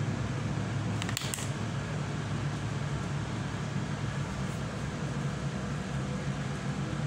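Steady low mechanical hum with an even background hiss, with a brief faint click or rustle about a second in.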